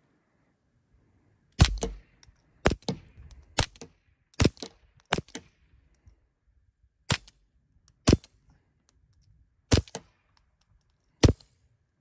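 Suppressed .22 LR semi-auto pistol, a Ruger Mark IV 22/45 with a Little Spoon silencer, firing CCI Quiet Semi-Auto rounds: nine sharp cracks at an uneven pace of about one a second.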